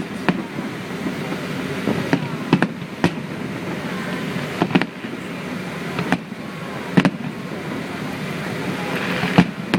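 Fireworks going off: about nine sharp bangs at uneven intervals over a steady background murmur.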